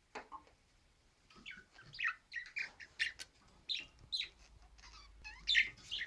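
Budgerigar chirping and warbling: a quick, continuous run of short, varied chirps that slide up and down in pitch, starting about a second in and loudest near the end.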